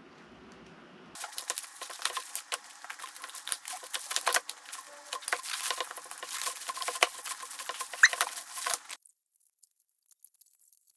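A steamed red king crab being taken apart in a plastic bag: dense crinkling of the plastic and crackling of the shell as legs are handled and snipped with kitchen scissors. It starts about a second in and stops suddenly near the end.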